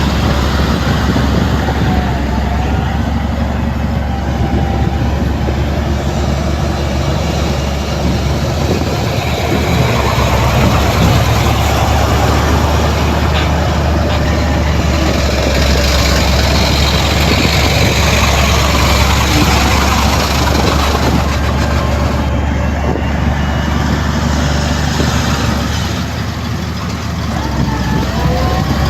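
Heavy diesel earthmoving machinery, a bulldozer and dump trucks, running steadily with a deep continuous engine sound. Brief wavering whines come through near the start and again near the end.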